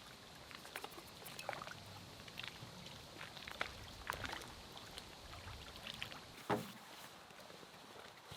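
Lake water lapping quietly, with faint irregular small splashes and a louder slap about six and a half seconds in.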